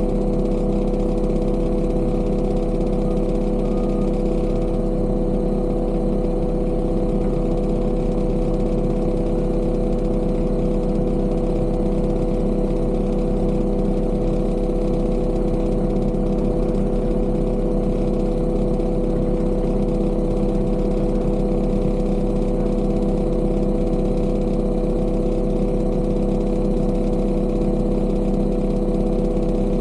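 Heavy construction machine's engine running at a steady speed, its pitch and loudness unchanging throughout.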